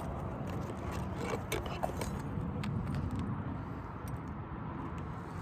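Light scraping and scattered clicks from asphalt roof shingles being handled and worked on, over a steady low outdoor rumble.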